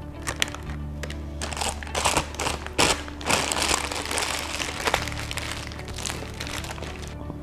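Disposable plastic piping bag crinkling and rustling in the hands as whipped cream filling is spooned in and the bag is gathered and twisted shut. The crinkling is densest in the middle few seconds.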